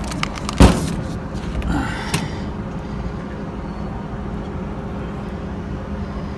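Steady hum of running machinery with a constant low tone, broken by one sharp knock about half a second in and a few lighter clicks over the next second and a half.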